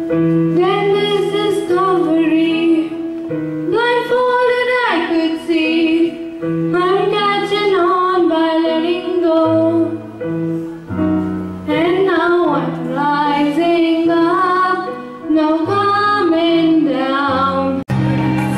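A girl singing a song solo into a microphone over instrumental accompaniment with sustained low notes. Near the end it cuts abruptly to a group of children singing together.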